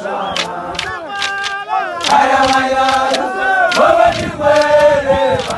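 A crowd of men chanting and singing together in sustained voices, with sharp clacks scattered through it.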